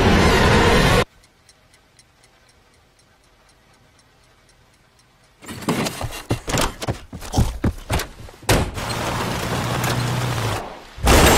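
Loud music cuts off about a second in, leaving a clock ticking steadily, about three ticks a second, in a quiet room for about four seconds. Then comes a run of irregular loud knocks and rustles. Near the end a car runs steadily with a low hum under a rushing noise.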